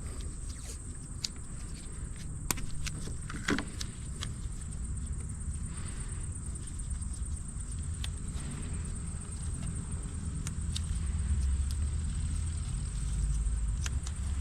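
Scattered clicks and knocks of hand tools working on an engine over a steady low rumble.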